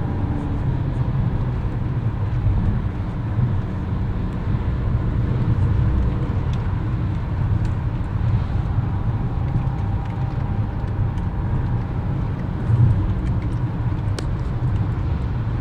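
Steady engine and tyre rumble of a car driving at road speed, heard from inside the cabin.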